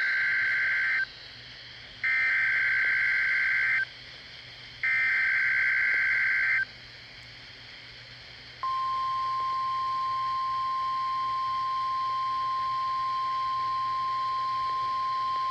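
NOAA Weather Radio emergency alert signal: three bursts of SAME digital header data about a second apart, then after a short pause the steady single-pitch 1050 Hz warning alarm tone, which begins about eight and a half seconds in. The sequence marks the start of a tornado watch broadcast.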